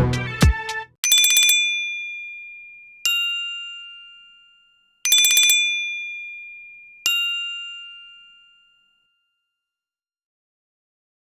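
MigeMax CK22 phone ringtone: an electronic two-note bell chime, a high tone and then a lower one two seconds apart, each starting with a fast flutter and ringing out slowly. The pair plays twice, then stops. The last moment of the previous, music-style ringtone is heard at the very start.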